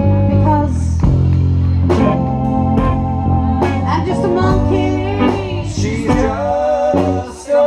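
Live rock band playing a song: a woman singing lead over electric guitar, bass, drums and an organ-toned keyboard. The band drops out briefly near the end, then comes back in.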